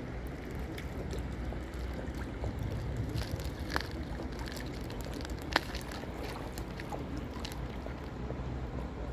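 Steady low rumble of wind on the microphone and the fast-flowing, flooded Rhine, with a few brief sharp clicks, the loudest about five and a half seconds in.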